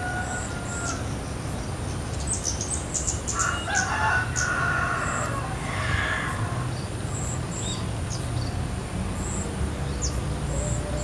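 A rooster crowing once, a few seconds in, over small birds chirping high and short and a steady outdoor background hiss.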